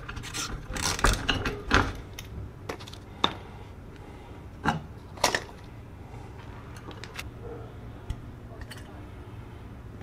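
Old rusted steel garage-door safety-sensor bracket clicking and rattling as it is turned off its bolt by hand, the bolt freed with penetrating oil. The clicking is densest in the first two seconds, then comes as a few scattered single clicks.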